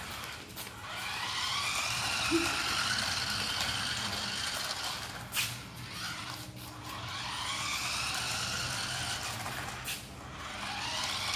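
Electric motor and gears of a small toy RC off-road truck whining as it drives, the pitch rising and falling as it speeds up and slows. Two sharp knocks, about five seconds in and near the end.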